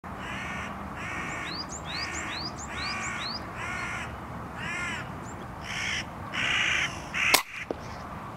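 Hooded crows cawing over and over, harsh calls roughly every half second to a second, with thin rising whistles among the early caws. About seven seconds in there is a single sharp crack, the loudest sound, followed by a fainter click.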